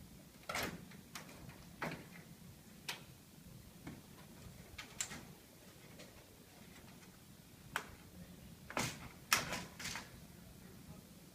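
Irregular sharp clicks and light knocks of parts and tools being handled during the power supply repair, with a cluster of louder knocks near the end.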